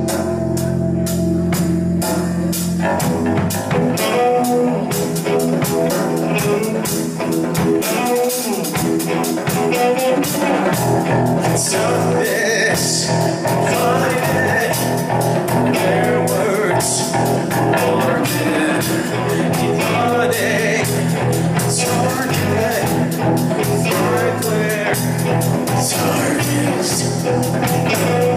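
Live band playing a guitar-led blues-rock number with a steady cymbal beat, roughly recorded.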